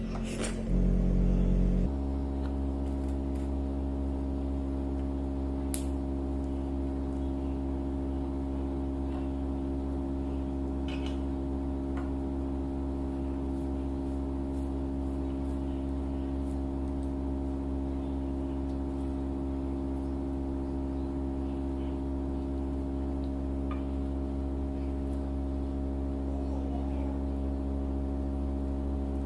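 A steady, unchanging low drone of several pitches held together, with a few faint clicks over it.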